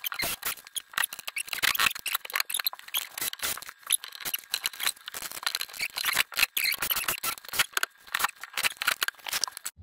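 Cordless drill driving screws through L-shaped brackets to fix a kitchen end panel to the worktop, heard as a dense run of rapid clicks and rattles.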